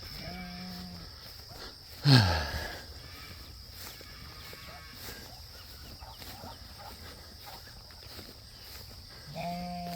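Farm livestock calling: a short, steady call just after the start, one loud call about two seconds in that falls sharply in pitch, and another short call near the end. A steady high-pitched drone of insects runs underneath.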